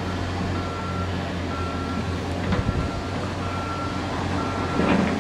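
An electronic warning beeper sounding a single high tone about once a second, each beep about half a second long, over a steady low hum.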